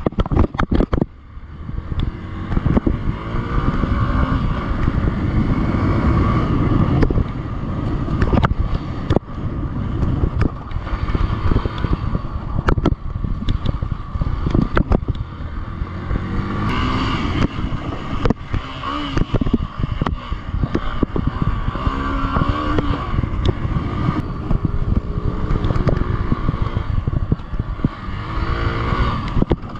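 Hero Xpulse 200's single-cylinder engine being ridden hard off-road, its pitch rising and falling again and again as the throttle opens and closes. Frequent sharp knocks and rattles run through it.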